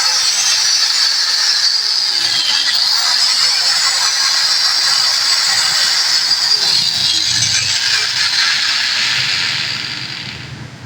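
Electric angle grinder with a newly fitted armature running at full speed with a steady high whine, switched off about ten seconds in and winding down.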